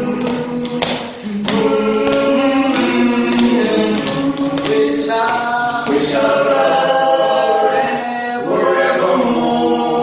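Music: a choir singing in harmony with long held notes, with a few percussive hits in the first second or so.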